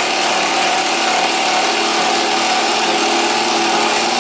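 Bosch GDR 12V-EC cordless impact driver hammering steadily as it drives a long screw into wood.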